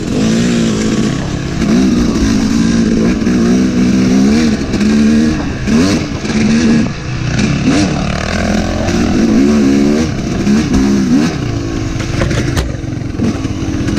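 Yamaha YZ250 two-stroke dirt bike engine being ridden hard, revving up and falling back over and over as the throttle is worked. A sharp knock about twelve and a half seconds in.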